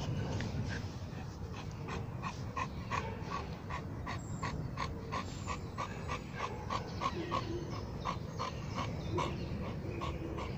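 Large bulldog-type dog panting steadily with its tongue out, about three breaths a second.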